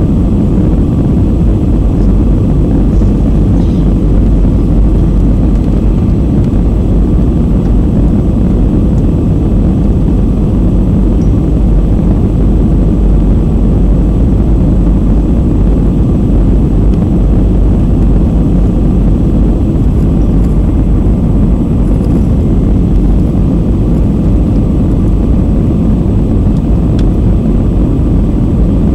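Jet airliner cabin noise on approach: the steady low rumble of the engines and airflow, heard from inside the cabin at a window seat over the wing. It runs loud and unchanging, with a faint steady whine above it.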